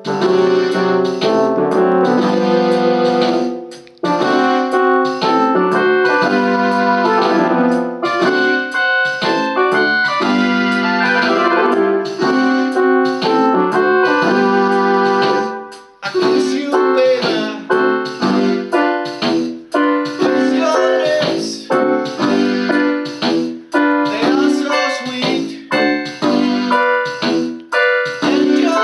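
Electronic keyboard playing instrumental chords, with no voice. The chords are held and sustained at first; after a short break about halfway through they turn into shorter, choppier notes.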